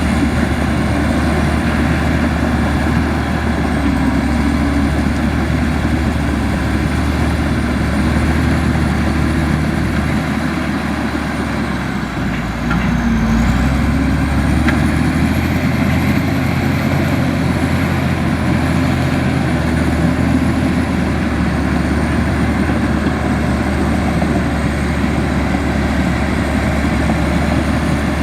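A Komatsu bulldozer's diesel engine runs hard and steadily, with a thin high whine that wavers in pitch. The engine sags briefly about halfway through, then picks up again.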